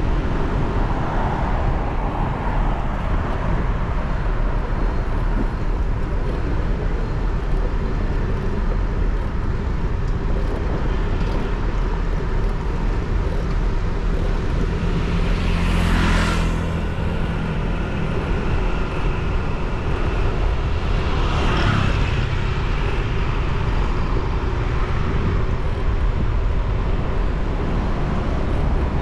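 City street traffic heard from a moving motorcycle: a steady low engine and road rumble. A vehicle passes close about halfway through, and another a few seconds later.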